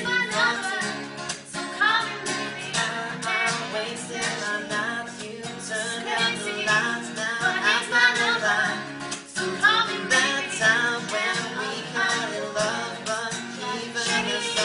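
Music: a voice singing to plucked guitar accompaniment.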